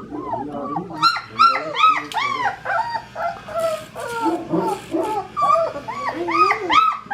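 Great Dane puppies whining and yelping in a rapid run of rising-and-falling cries that grow louder about a second in, protesting as their nails are done.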